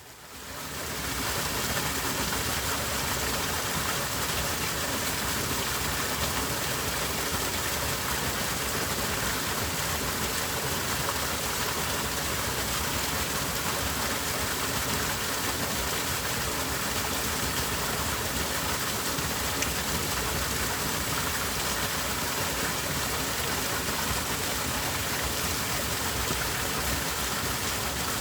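Small valley stream flowing, a steady rushing of water that fades in over the first second or two.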